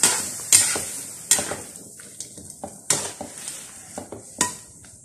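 Metal spatula scraping and knocking against a metal wok as meat in soy sauce is stirred, about six sharp strokes at uneven intervals, with the sauce sizzling underneath. The strokes grow quieter towards the end.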